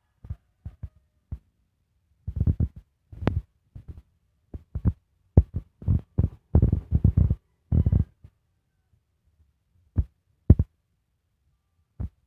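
Irregular low thumps and knocks, some single and some in quick clusters, from a person walking with a handheld phone: footfalls and handling bumps on the phone.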